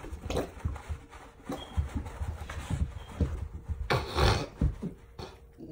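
A man making irregular short breathy grunts and gasps, about two or three a second, with a louder burst about four seconds in.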